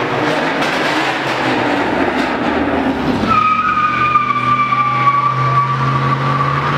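Car engine running hard through a burnout. About three seconds in, the spinning tyres start a steady, high-pitched squeal over the engine's steady note.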